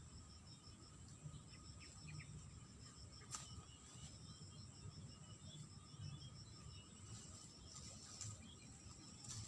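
Faint insects chirping in a rapid, even pulse, about six a second, over a steady high whine and a low rumble, with one sharp click about a third of the way in.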